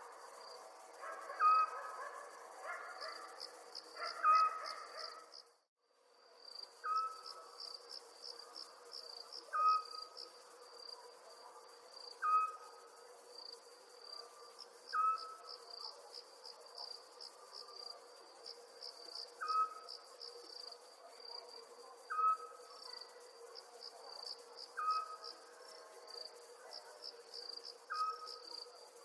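Crickets chirping in trains of rapid high pulses, over a short lower call that repeats about every two and a half seconds and a faint steady hum. Everything cuts out for about half a second roughly six seconds in.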